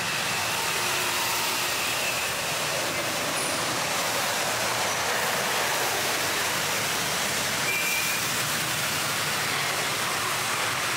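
Steady noise of busy city road traffic.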